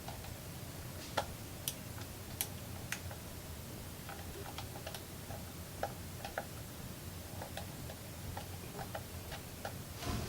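Irregular small clicks and taps from wiring work at a sprinkler controller's push-lock terminal block, over a low steady hum.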